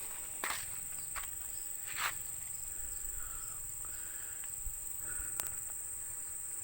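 Insects keeping up a steady, high-pitched drone, with a few footsteps scuffing in the first couple of seconds and a single sharp click later.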